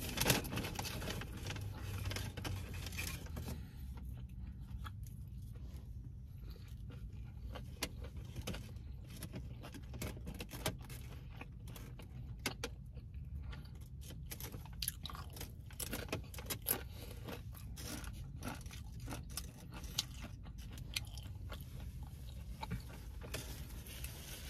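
Eating sounds inside a parked car: chewing and bites, with scattered clicks and crinkles as food and containers are handled, over a steady low hum.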